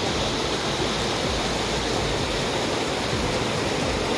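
Rocky mountain stream rushing over stones: a steady, even rush of water.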